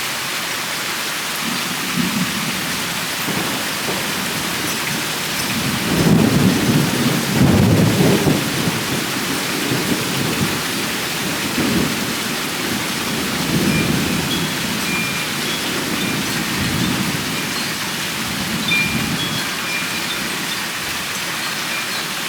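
Steady rain falling, with a long peal of thunder rolling under it. The rumble builds from about two seconds in, is loudest a few seconds later, then rolls on in weaker waves before dying away near the end.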